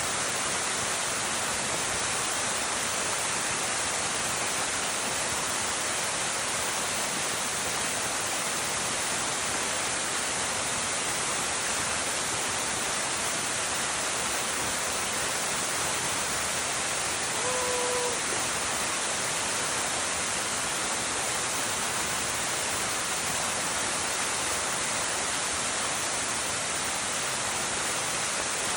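Waterfall, a steady rush of falling water. A brief pitched call sounds once, about two-thirds of the way through.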